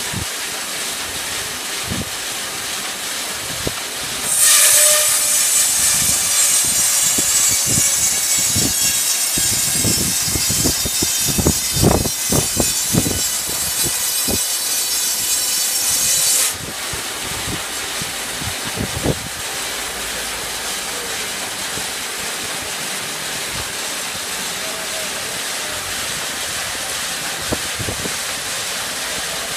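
Large block band saw running, its wheels turning steadily. About four seconds in, a loud high hissing with a fine whine sets in as the blade cuts into a log; it lasts about twelve seconds with a run of low knocks in the middle, then stops abruptly, leaving the saw running on.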